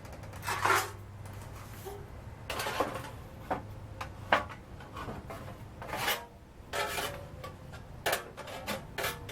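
Sheet metal being handled and fitted: a dozen irregular clanks, knocks and scrapes.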